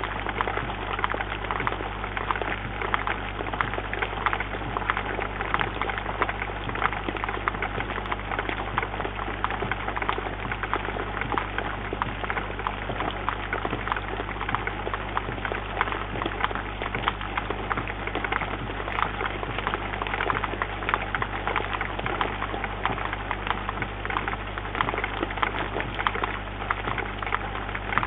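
Rain falling on a bird feeder, picked up by a microphone in the feeder: a steady, dense patter of drop ticks over a faint steady low hum.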